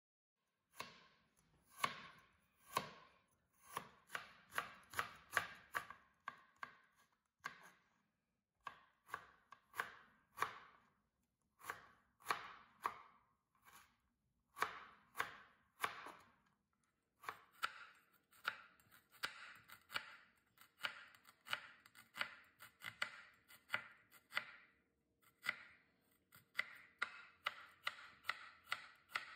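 Chef's knife chopping on a plastic cutting board, mincing julienned carrot and later cutting an onion: runs of quick, sharp strokes, a few per second, with short pauses between the runs.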